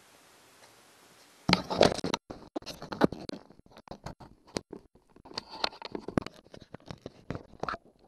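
Handling noise: irregular clicks, knocks and scraping that start suddenly about a second and a half in and keep going, as the outboard steering parts and the camera are handled.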